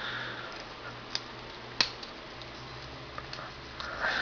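Small clicks and ticks of hard plastic Gundam model-kit parts being fitted together by hand, with one sharp click a little under two seconds in, which is the sound of the kit's V-fin.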